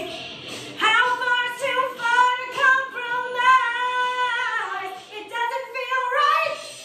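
A woman singing solo, holding long notes with vibrato across several phrases, then a rising final phrase that cuts off near the end.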